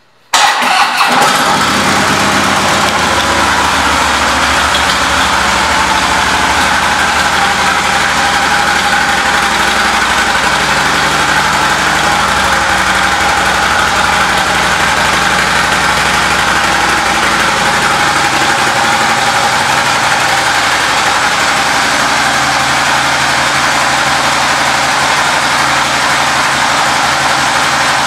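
2016 Harley-Davidson Police Electra Glide's V-twin engine cranking and catching just after the start, then idling steadily.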